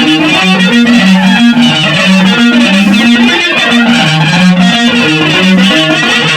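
Loud guitar music from a jam: a repeating low line of short held notes steps up and down beneath busy upper parts.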